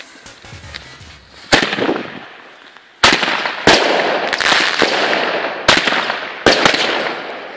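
Jorge 'Mars' 16-shot, 19 mm fireworks battery firing: one sharp launch bang about a second and a half in, then a quick run of about five more shots from about three seconds in, with crackling and hiss between the shots.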